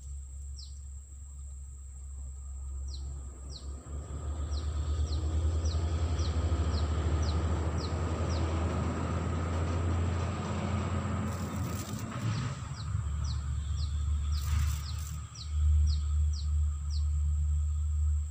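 Waterside ambience: a steady high insect drone and runs of short, falling high chirps about three a second, over a low, gusting wind rumble on the microphone. The rumble grows louder from about four seconds in.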